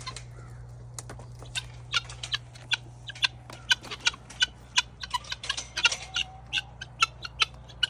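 Chickens making many short, sharp clucks and chirps in quick irregular succession, over a steady low hum.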